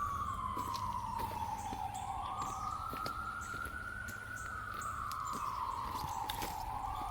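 Emergency vehicle siren in the slow wail pattern, its pitch sliding down and up again in long sweeps of a few seconds each.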